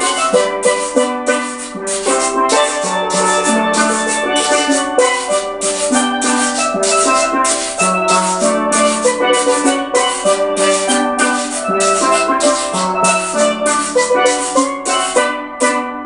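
A steel pan trio playing a lively soca tune: ringing pitched pan notes over a steady percussion beat of about two strikes a second.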